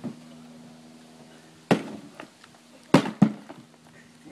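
An axe chopping into the smashed remains of a large TV: four sharp blows, a light one at the start, a loud one a little under two seconds in, and two loud ones close together about three seconds in.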